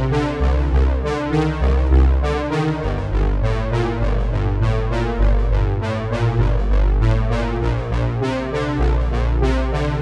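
Background music with a steady beat: synthesizer and electric-piano keyboard over a strong bass line.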